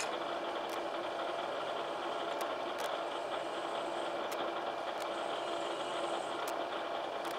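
Bridgeport vertical milling machine running steadily while a drill is fed into a bronze casting to drill and chamfer a hole. A faint high whine comes and goes, with a few light ticks; the owner knows the machine needs a new bearing.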